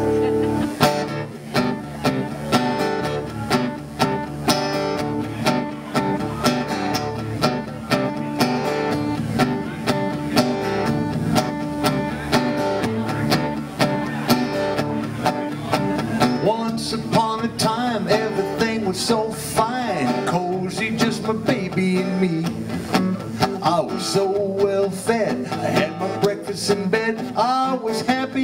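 Acoustic guitar strummed in a steady rhythm, with a man's singing voice coming in about halfway through.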